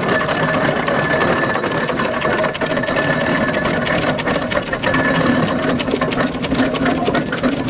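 Burrell steam traction engine running past at slow parade pace: a fast, steady mechanical clatter from its gearing and motion work, which thickens near the end.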